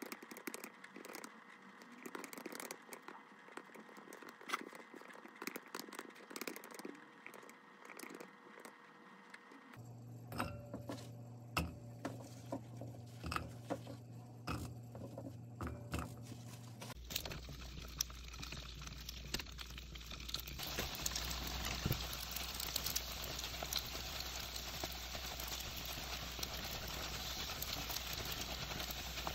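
Typing on a keyboard, quick light key clicks. About ten seconds in, scattered knocks of rice-cake sticks going into a frying pan. From about seventeen seconds, oil sizzling and crackling as the rice cakes fry, growing louder.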